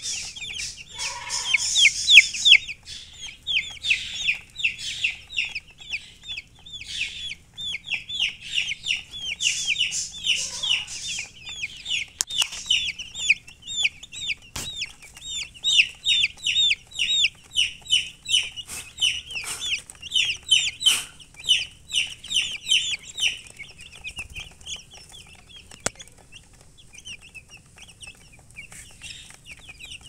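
A flock of baby chicks peeping: a dense chorus of short, high chirps that thins out to scattered peeps in the last several seconds.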